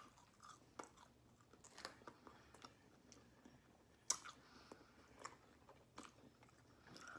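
Faint mouth sounds of a person chewing and biting food, with scattered soft clicks; the sharpest click comes about four seconds in.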